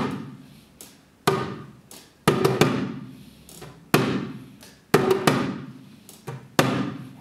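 Small rawhide-headed hand drum played with bare hands in a loose rhythm: clusters of two or three strokes about once a second, each ringing out with a low tone.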